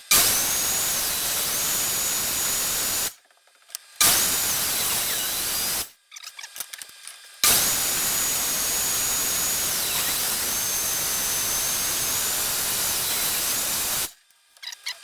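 Table saw running and cutting wood: a loud, steady whine and rush of noise in three stretches that start and stop abruptly, with short silent gaps between.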